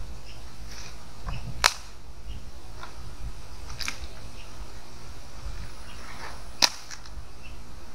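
Firewood cracking as a wood fire is tended: two sharp cracks about five seconds apart and a few fainter clicks between them, over a low steady rumble.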